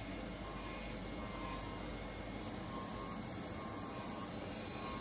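CNC oscillating knife fabric cutter running while it cuts plush fabric: a steady mechanical hum and hiss, with a faint higher tone that comes and goes as the cutting head moves.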